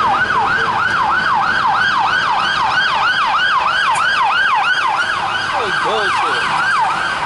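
Emergency vehicle siren in fast yelp mode: a loud, quickly repeating rising-and-falling wail, about three to four cycles a second. The rapid cycling stops near the end.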